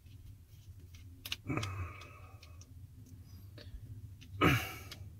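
Small clicks and scrapes of a screwdriver turning screws out of the body of an Okuma Inspira ISX 4000A spinning fishing reel, over a low steady hum, with a louder short rustle about four and a half seconds in.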